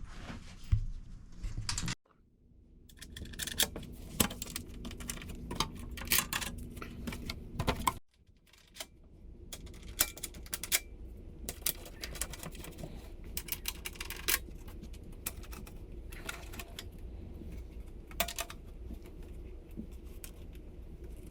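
Wing nuts being threaded onto bolts by hand and parts handled: irregular small metal clicks and rattles. The sound cuts out abruptly twice, about two and eight seconds in.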